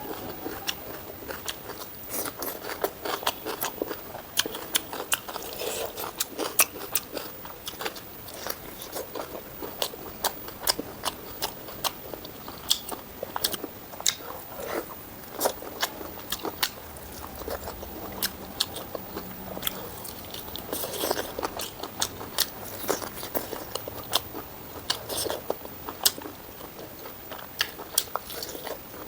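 A person eating close to the microphone: chewing and crunching mouthfuls, with many irregular sharp clicks and mouth smacks all the way through.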